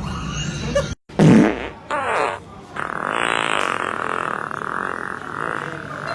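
Fart noises: a short loud one just after a brief cut to silence about a second in, another soon after, then a long drawn-out, wavering one from about three seconds on.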